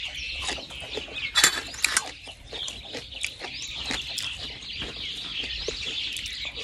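Close-up eating sounds: chewing and a spoon clicking against a metal tray, with birds chirping steadily in the background.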